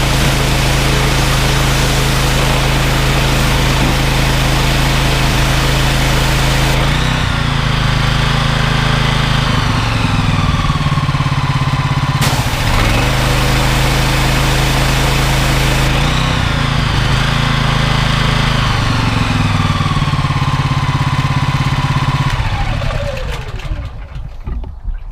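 Honda GX390 single-cylinder petrol engine running a belt-driven pressure washer pump, with the hiss of the lance spraying. The spray stops twice for a few seconds while the engine keeps running and its pitch shifts. Near the end the engine shuts off and winds down.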